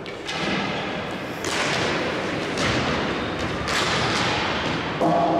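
Four sharp thuds about a second apart, each trailing off in an echo, over a steady background din.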